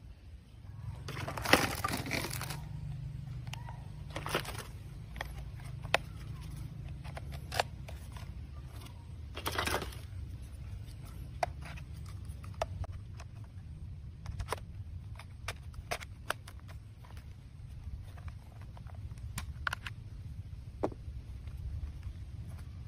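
Plastic toy guns being handled: scattered clicks and knocks of hard plastic parts, with two louder stretches of rustling and clatter, one about a second and a half in and one near ten seconds. A steady low hum runs underneath.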